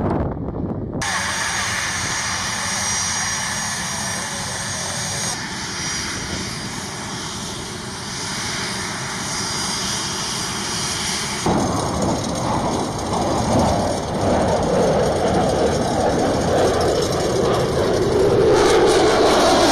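A-10 Thunderbolt II's twin General Electric TF34 turbofan engines running with a steady jet hiss and whine. The sound changes abruptly about a second in and twice more, and grows louder in the last few seconds.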